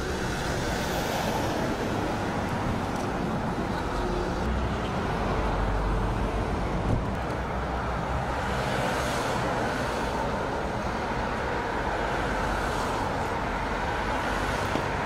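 Road traffic passing on a multi-lane road: a continuous rumble of cars, swelling as several vehicles go by, heaviest around the middle.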